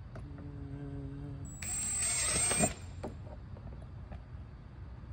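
Cordless drill boring a hole through the shell of a prop head: a brief steady hum at low speed, then about a second of loud running at full speed as the bit cuts through, stopping abruptly.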